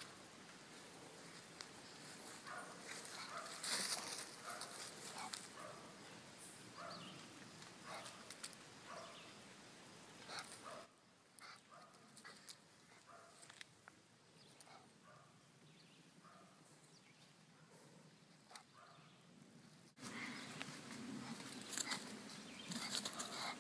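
Brussels Griffon dog sniffing and scrabbling at a rock crevice while hunting a chipmunk: faint, irregular snuffles and scrapes with a few short dog sounds.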